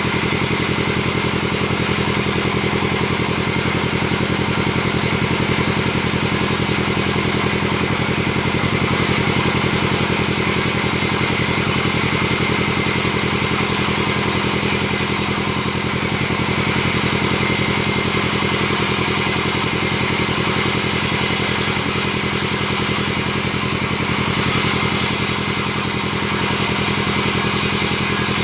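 Band sawmill running steadily: a machine drone under a loud high hiss that eases briefly three times, about every eight seconds.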